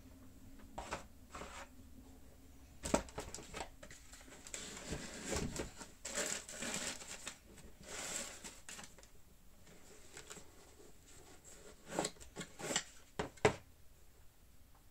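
Tissue paper crinkling and rustling as a sneaker is pulled out of its wrapping in a cardboard shoebox, with a few sharp taps and knocks of handling near the start and again near the end.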